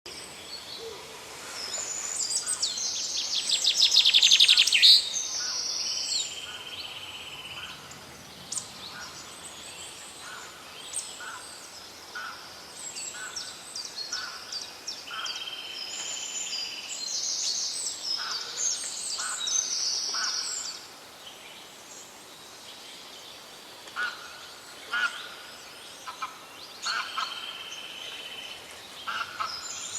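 Several songbirds singing, with short, high phrases overlapping one another. A loud, fast trill builds from about two seconds in and peaks near five seconds.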